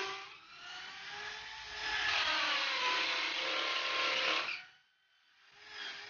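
A power tool whirring, its pitch drifting slowly up and down. It stops for about half a second near the end, then starts again.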